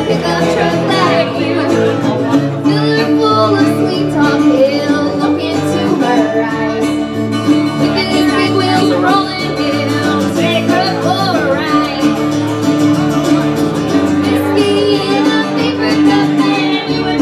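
Live country band: a woman singing lead over acoustic guitar, electric bass and resonator guitar, with a steady bass line underneath.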